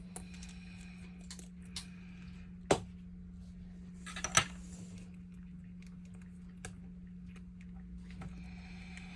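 Small hard objects being handled: a few light clicks and two sharp clacks, the second a quick double one, over a steady low hum.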